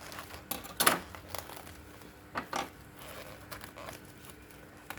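A few light knocks and clicks of items being handled and set down, the loudest about a second in and a pair at about two and a half seconds.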